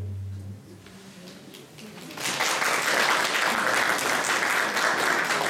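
Audience applause that breaks out about two seconds in and carries on, just after the folk band's last low bowed string note stops about half a second in.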